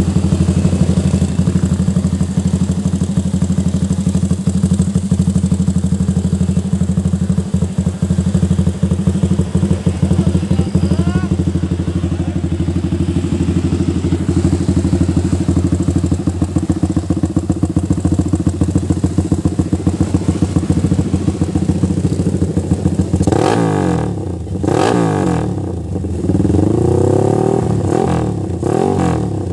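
Raider 160 motorcycle engine idling steadily with a fast, even pulse, then revved up and let fall back several times near the end.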